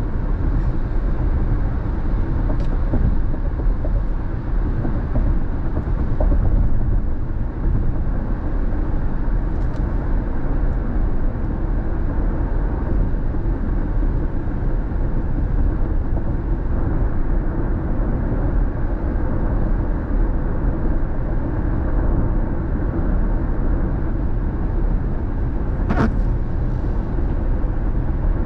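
Steady road noise inside a car driving at freeway speed on wet pavement: tyre hiss and a low drone with no changes, and a single sharp click near the end.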